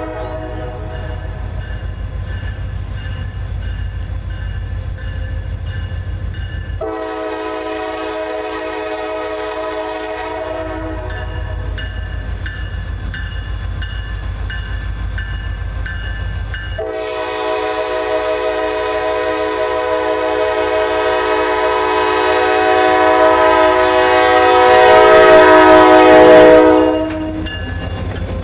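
Norfolk Southern diesel locomotive's 3rd-generation Nathan K5LA five-chime air horn sounding as the train approaches: a long blast, a shorter one right after it, a pause of about six seconds, then a long blast that grows louder as the locomotive draws near and cuts off as it reaches the microphone. The low rumble of the approaching locomotives runs underneath.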